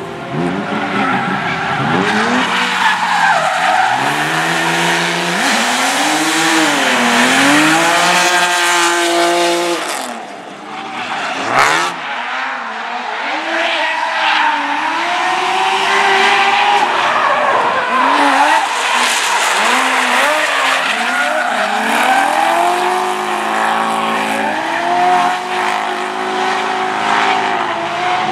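Drift cars at full throttle, their engines revving up and down repeatedly as they slide, with continuous tire squeal. A single sharp crack comes about eleven and a half seconds in.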